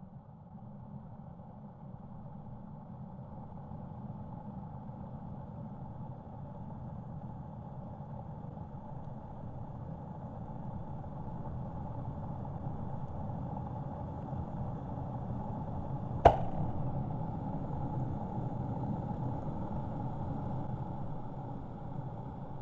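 Kettle heating water, a steady low rushing that slowly grows louder as the water nears the boil, with a single sharp click about 16 seconds in.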